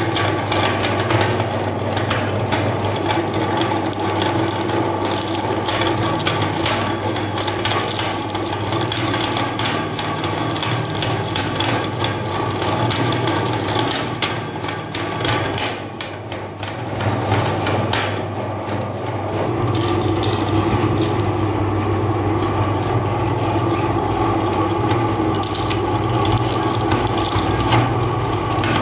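Electric meat grinder running with a steady motor hum while its auger crushes hard candies, giving dense crunching and cracking. The crunching eases for a moment a little past halfway, then picks up again.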